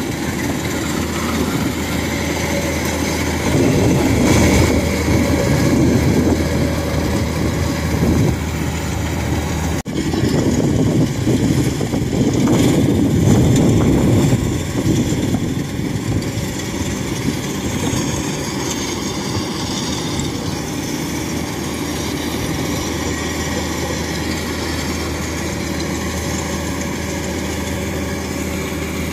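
Rice combine harvester's diesel engine running steadily under load as it cuts and threshes ripe rice, its hum swelling louder twice.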